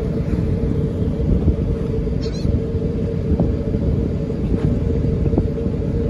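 Fire boat's engine running steadily at low speed, a low rumble with a steady hum. A few brief high chirps about two seconds in.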